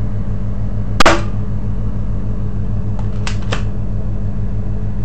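Spring-powered plastic airsoft pistol firing a 6 mm BB, one sharp snap about a second in, followed a couple of seconds later by two light clicks as the gun is cocked again.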